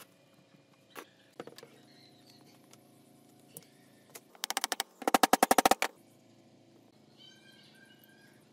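Two quick runs of sharp metal taps, the second louder with about ten strikes in under a second: a new ball bearing being tapped onto the shaft of an angle grinder's armature. A few light clicks and handling knocks come first.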